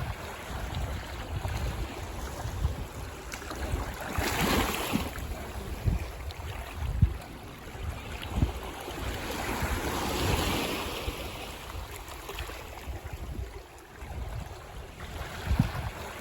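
Ocean waves breaking and washing on a beach. The surf swells about four seconds in and again around ten seconds, over a steady low rumble.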